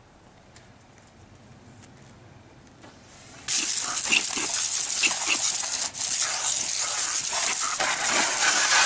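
Water spraying hard from a garden-hose-fed PVC undercarriage washer, coming on suddenly about three and a half seconds in as a loud, steady hiss, with a brief break near six seconds. Before it there are only a few faint clicks.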